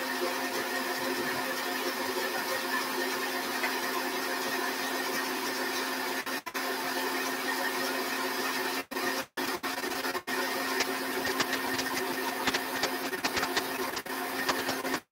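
Electric stand mixer motor running steadily at one speed, creaming butter and sugar. The hum has a constant pitch and cuts out briefly a few times.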